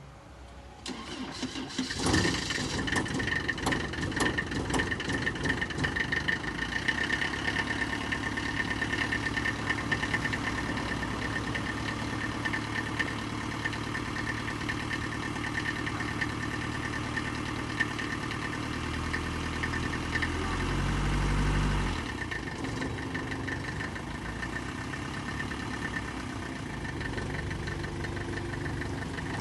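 Mercedes MB100 van engine cranking and starting about two seconds in, then running steadily. About two-thirds of the way through, a low engine note swells for a few seconds and then drops back, as the van is driven to try to free a wheel that jammed brake pads may be holding.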